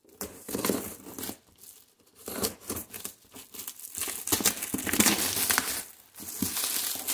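Black plastic parcel wrapping crinkling and tearing as it is pulled off a cardboard box, with a folding knife blade slitting the packing tape; irregular rustles and scrapes, busiest in the second half.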